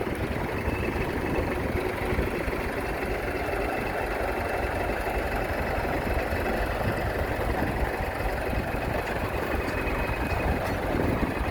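Heavy construction machine's diesel engine running steadily, a dense low rumble with no change in pace.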